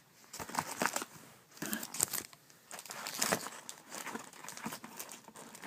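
Plastic trading-card pack wrappers crinkling and rustling as the packs are handled, with irregular short crackles and tearing sounds of a pack being pulled open.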